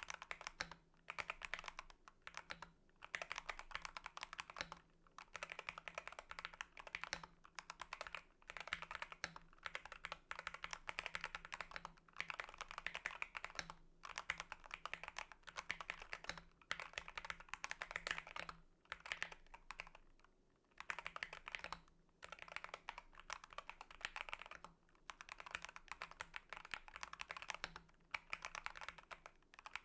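DrunkDeer A75 Pro magnetic-switch keyboard being typed on: fast runs of key clacks in bursts, broken by short pauses every second or two, with a longer pause about two-thirds of the way through.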